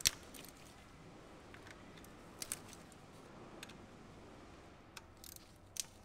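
A handful of short, sharp plastic clicks and taps, spread unevenly, as hands work the solenoid connector bracket loose from the valve body of a Hyundai/Kia six-speed automatic transmission.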